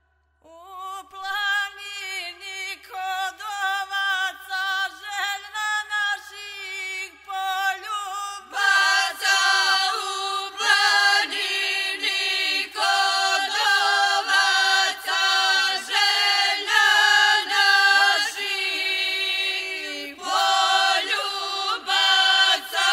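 Traditional folk song sung unaccompanied by a group of singers: a steady held note runs beneath a wavering, ornamented melody. About eight seconds in the singing grows louder and fuller.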